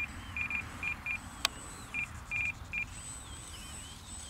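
Radio-control transmitter beeping in short high electronic pips, in uneven groups of one to three, with a single sharp click about a second and a half in.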